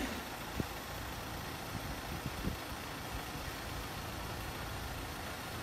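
Steady drone of idling vehicle engines, with a couple of faint knocks in the first few seconds.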